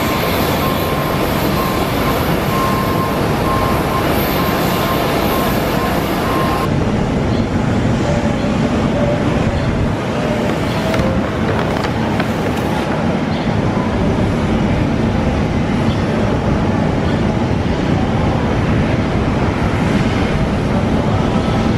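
Steady jet-aircraft engine and ramp noise at an airport apron. A repeated beep sounds over it for the first few seconds. About seven seconds in, the high hiss drops away and a lower, steady engine noise carries on.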